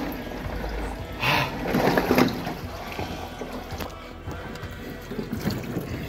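Water sloshing and splashing in a chest-freezer ice bath as a person moves in it, with louder splashes between one and two seconds in, over background music.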